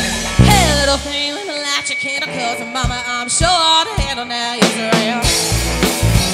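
Live funk band playing: singing over drums and electric guitar. The bass drops out for a few seconds, and the full band comes back in about five seconds in.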